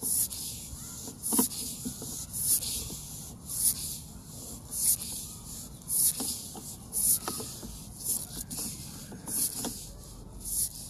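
Sewer-scope camera push cable being fed stroke by stroke into the sewer line, a rasping hiss repeating about once a second as the cable slides through the pipe.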